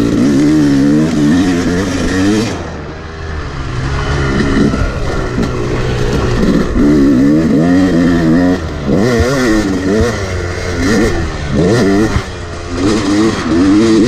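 Two-stroke Yamaha dirt bike engine heard on board, revving up and easing off again and again, about six surges, as the rider works the throttle through a trail section.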